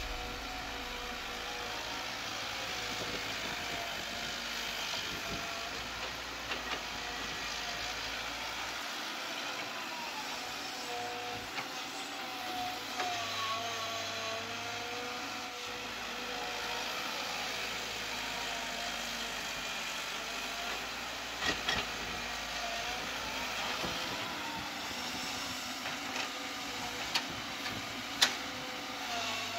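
Hydraulic excavator's diesel engine running steadily under digging load, its note rising and falling in pitch as the arm and bucket work. A few sharp knocks come as the bucket strikes stones in the ground, the loudest near the end.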